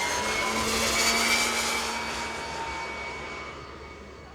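Small jet turbines of a giant-scale RC model airliner passing overhead: a high turbine whine over a rush of exhaust noise, loudest about a second in and then fading away as it flies off.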